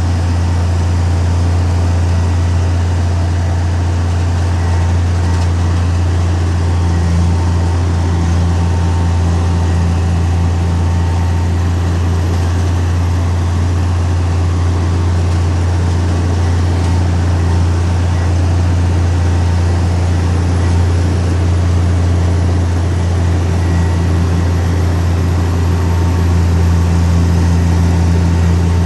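Heavy earthmoving machine's diesel engine running steadily with a deep, unchanging drone.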